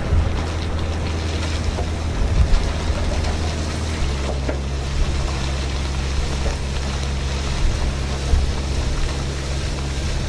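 BelAZ mining dump truck's large diesel engine running steadily under load, its note shifting to a different pitch about four seconds in.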